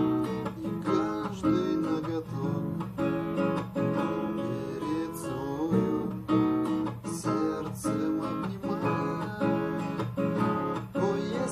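Acoustic guitar played in imitation of church bells ringing: a quick, steady run of plucked and strummed notes that ring over one another.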